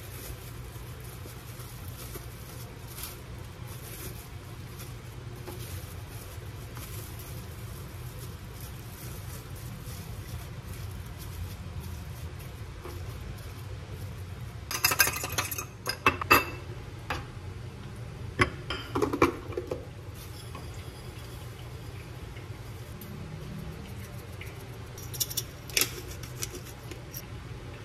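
Plastic cling film rustling and crinkling as it is handled and rolled around a piece of meat on a plastic cutting board, with louder bursts of crinkling about halfway through, again a few seconds later, and briefly near the end, over a steady low hum.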